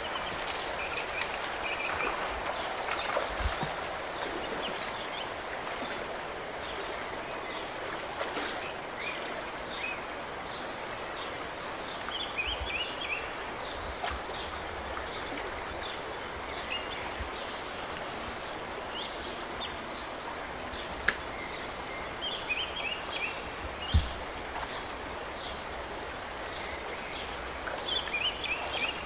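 Birds chirping in short repeated calls over a steady background of creek water, with two sharp knocks in the second half.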